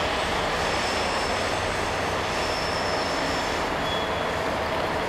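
Class 67 diesel-electric locomotive running at the platform, a steady mechanical rumble with a few faint, brief high-pitched squeals from the train's wheels.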